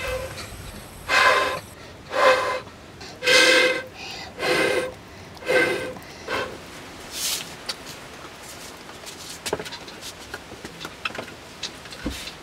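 A child blowing hard through a bamboo fire tube to kindle a wood cooking fire: five breathy puffs about a second apart, each with a hollow ring from the tube, then a few weaker puffs. Near the end, small scattered clicks as the fire crackles.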